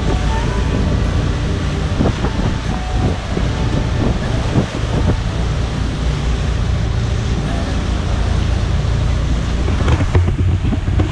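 Motorboat running on open water: a steady low rumble of engine and hull, with wind noise on the microphone.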